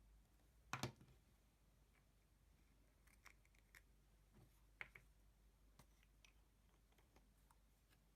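Faint, scattered small clicks and taps in a quiet room. The loudest is a quick double click about a second in.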